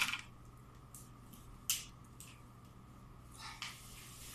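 A few short crackles and clicks of cooked blue crab shell being cracked and picked apart by hand, spaced irregularly over a low steady hum.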